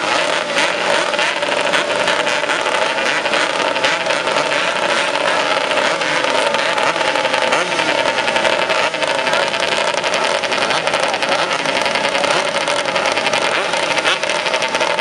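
A grid of small two-stroke racing motorcycles running together while waiting for the start, a dense, steady engine drone with throttle blips rising and falling through it.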